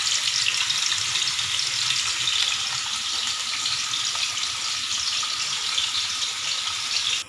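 Hot oil sizzling and crackling steadily as tofu strips deep-fry in a wok, with an egg frying in a pan beside it.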